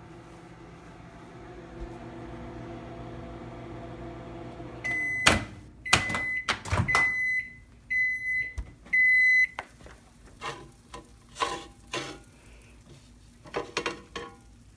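Microwave oven running with a steady hum that stops about five seconds in, followed by five end-of-cycle beeps about a second apart, with sharp clicks and knocks among them. A few scattered knocks follow.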